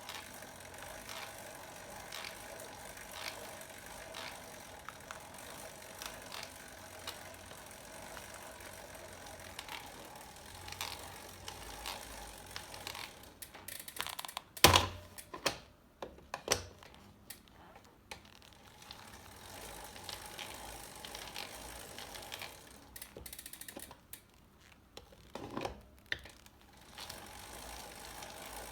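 Keywin road pedals clicking and creaking about once a second with each turn of the cranks, the noise of the pedal body's built-in play once its grease has run out. A few louder knocks come about halfway through and again near the end.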